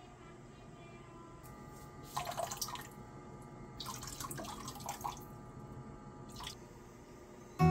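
Liquid poured from a bottle into water in a stainless steel pot, splashing in two spells of about a second each and once more briefly, part of cleaning factory polishing compound off the new pots.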